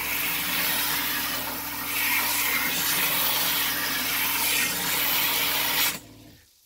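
AVAbay handheld bidet sprayer on high pressure: a hard jet of water spraying into an RV toilet bowl, a steady loud hiss with a low hum underneath. It shuts off about six seconds in.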